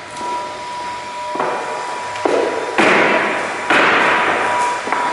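Sharp impacts on subfloor sheets during nailing, four of them in quick succession, each trailing off over up to a second, over a faint steady high tone.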